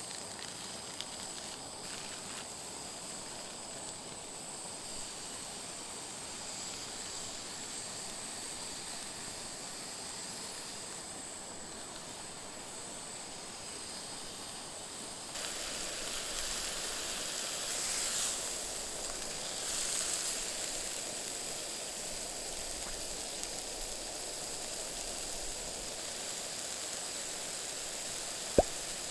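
Steak sizzling over a campfire: a steady hiss that gets louder about fifteen seconds in and swells twice soon after. A single sharp pop or crack comes near the end.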